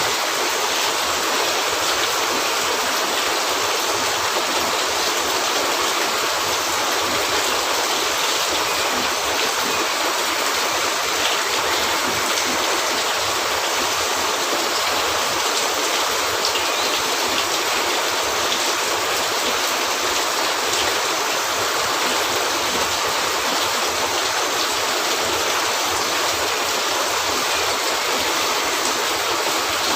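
Steady heavy rain: a dense, even hiss that does not let up.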